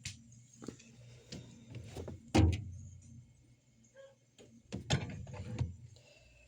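Handling sounds at a refrigerator: a few knocks and thuds of its door and contents being moved, the loudest a heavy thump about two and a half seconds in and another cluster of knocks near five seconds.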